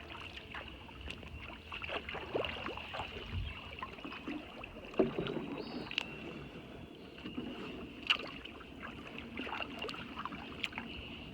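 Kayak paddle dipping and splashing in the water, with drips and irregular splashes; the loudest are about five and eight seconds in.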